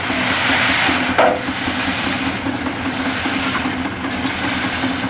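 Steyr 50 tractor's diesel engine running steadily while driving a PTO concrete mixer, its drum turning with gravel and cement churning inside as a steady hiss. A single sharp clank sounds about a second in.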